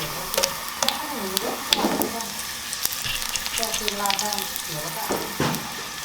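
Food frying in hot oil in a pan: a steady sizzle with scattered sharp crackling pops.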